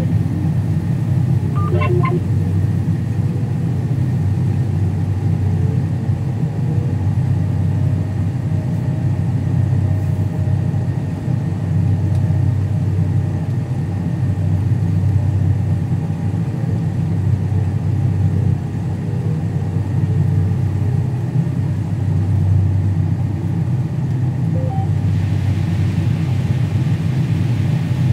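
Combine harvester running steadily under load: a constant low engine drone. A brief beeping comes in about two seconds in.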